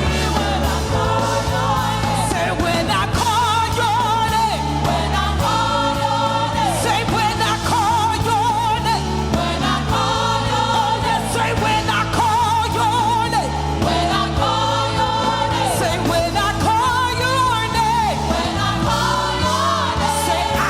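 Praise team singing a worship song, several voices with vibrato over a band with a bass line that changes note every second or two.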